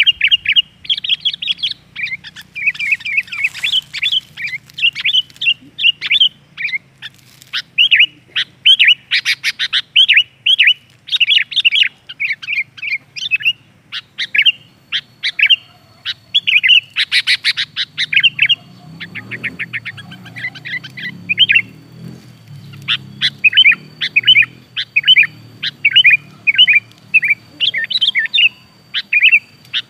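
Sooty-headed bulbul (kutilang) calling: a busy series of short, bright chirping notes in bouts, broken by a few fast rattling runs.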